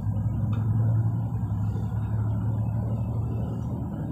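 Engine of a moving road vehicle running steadily, heard from inside it as it drives along: an even, low drone.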